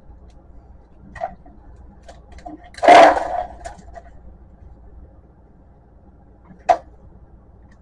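Hard plastic clatter as a printer-scanner's scan-head carriage is worked free of its housing and handled: one short loud rattle about three seconds in, with a single click before it and another near the end.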